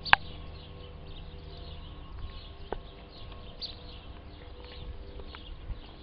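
Dog gnawing on a raw bone: scattered clicks and cracks of teeth on bone, with one sharp, loud crack right at the start. Small birds chirp repeatedly in the background.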